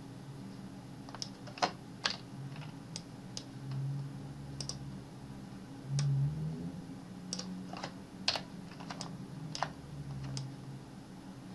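Computer keyboard and mouse clicking at irregular intervals, about a dozen sharp clicks, over a steady low hum.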